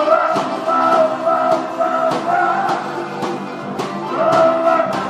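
Live music from a jam session: a melody of held, repeated notes over a steady percussive beat.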